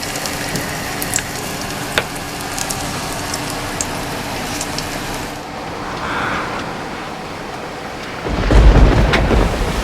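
Storm wind and rain on a small A-frame camper, heard inside as a steady hiss with a few light ticks. About eight seconds in, a heavy gust buffets the camper and the microphone with a loud low rumble.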